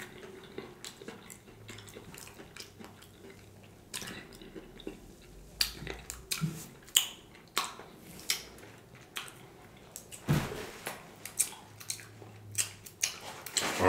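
Close-up mouth sounds of eating fried salmon croquettes: wet chewing with sharp, irregular lip smacks and finger-licking clicks.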